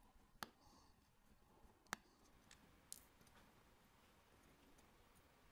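Small steel watchmaker's tools clicking against a stainless-steel caseback and its tiny screws as the caseback screws are taken out with a screwdriver and tweezers. There are about four faint, sharp clicks, the loudest about two seconds in.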